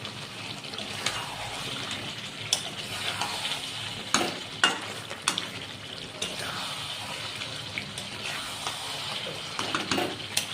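Chicken kosha sizzling in a pan as it is stirred, with several sharp clicks and knocks, the loudest about four to five seconds in.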